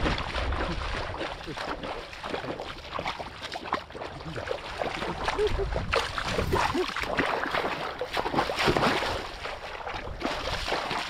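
Legs wading through shallow muddy water, churning and splashing continuously with each stride.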